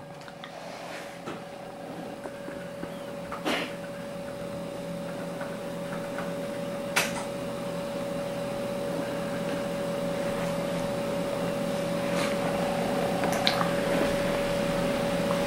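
Steady mechanical hum with one held tone, slowly growing louder, with a few faint clicks.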